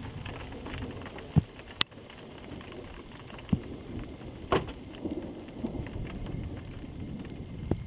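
Scattered raindrops striking close to the microphone: a handful of sharp, irregular taps over a low, steady background noise, the first drops of an approaching thunderstorm.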